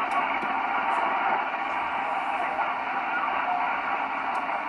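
Steady FM receiver hiss from a Yaesu FT-847 tuned to an amateur FM satellite downlink, with no station speaking. It is the open-squelch noise of the channel heard between overs.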